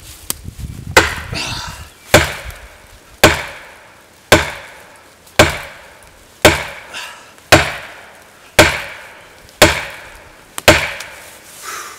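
Fiskars 28-inch chopping axe's composite handle being slammed against the trunk of a dead hardwood tree in deliberate overstrikes. There are ten sharp, hard strikes about a second apart, each dying away before the next.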